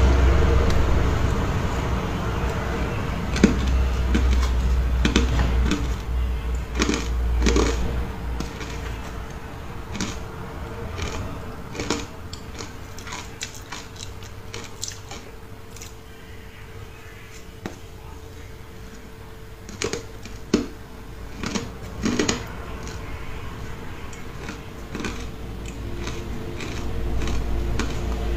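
Close-up chewing of powdery frozen ice coated in matcha powder: soft crunching broken by scattered sharp crunches, a few of them loud. A faint steady hum runs underneath, and a low rumble fills the first several seconds.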